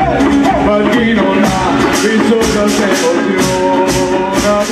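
Bottari band playing traditional music on wooden barrels, vats and scythes, with pitched lines of voice or instrument held and gliding over it. From about a second and a half in, a steady beat of bright, sharp strikes comes about three times a second.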